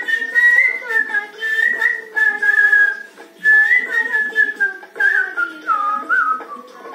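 A man whistling a Telugu film-song melody by mouth, in phrases of held and gliding notes that drop lower near the end, with the song's instrumental music playing softly beneath.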